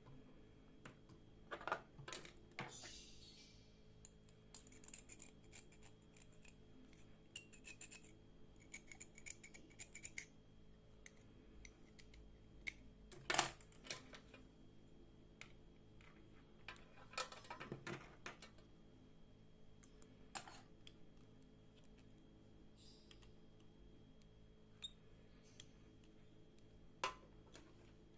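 Quiet hand-work sounds: scattered taps and clicks of a metal tool or objects being set down and handled, with a few short scraping or brushing passages, over a faint steady hum.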